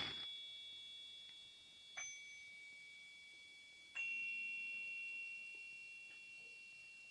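Soft bell-like chime tones struck three times, about two seconds apart, each ringing on high and fading slowly; the first strike opens with a brief hiss-like burst, and the last rings until the end.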